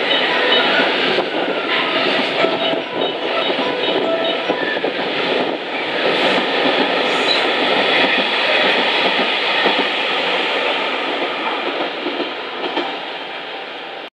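Freight train of JR container flatcars passing at speed: a steady loud rolling noise of steel wheels on rail with clicks at the rail joints. It fades near the end as the last wagons go by.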